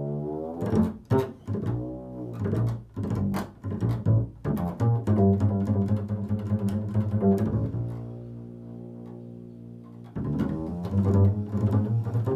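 Bass played in a slow free improvisation: plucked notes with sliding pitch, then one long note left ringing and fading before new notes begin.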